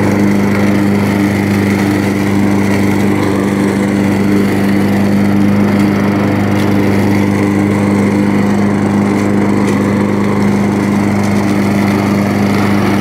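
Craftsman Eager-1 walk-behind gas lawn mower running steadily at an even pitch as it is pushed over leaves, sucking them up.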